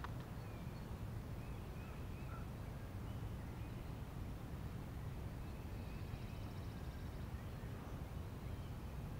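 Faint bird chirps scattered throughout, with a brief buzzy trill about six seconds in, over a steady low rumble.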